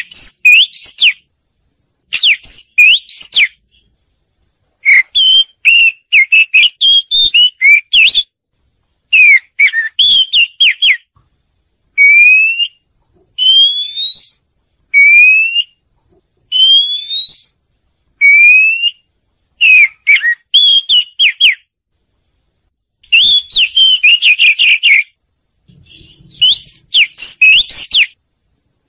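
Oriental magpie-robin singing: loud whistled phrases separated by short pauses, mixing quick slurred notes with, in the middle, a run of clear whistles that each rise in pitch.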